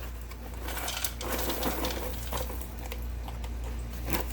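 A popped microwave popcorn bag being handled and set on a kitchen scale for weighing, making scattered small clicks and light rustles over a steady low hum.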